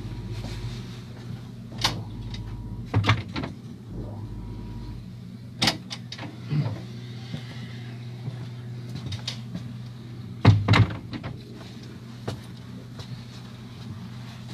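Steady low hum inside a train carriage, broken by several sharp clunks and knocks, the loudest a quick pair about ten seconds in.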